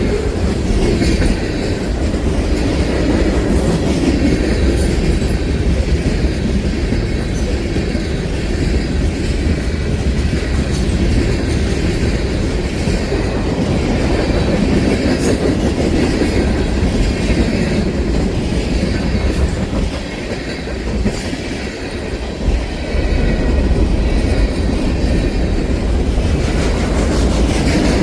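Long freight train rolling past: a steady rumble of the cars with repeated clicking of wheels over the rail joints. The sound dips briefly about two thirds of the way through.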